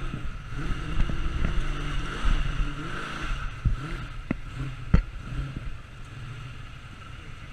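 Car engine revving up and down again and again as the car is driven hard around cones on a grass course, with two sharp knocks about four and five seconds in. Near the end the revs drop and the engine runs lower and steadier.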